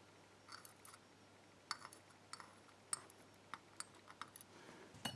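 Faint, irregular light clicks and clinks of small lock driver pins being handled and set into a pinning tray.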